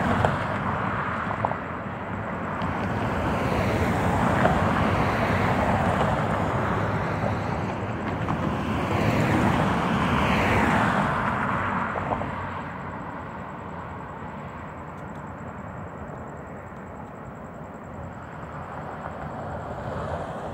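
Road traffic: cars passing one after another, tyre and engine noise swelling and fading as each goes by. The loudest passes come about a third of the way in and again about halfway, and it is quieter after that.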